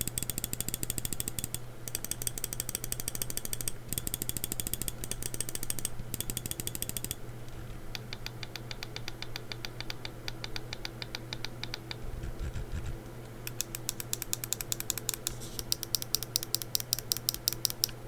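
Rapid clicking of the Pulsar X2 Crazylight Medium gaming mouse's buttons, in fast runs broken by short pauses, softer for a few seconds in the middle, and ending in a string of evenly spaced sharper clicks at about seven a second. A steady low hum runs underneath.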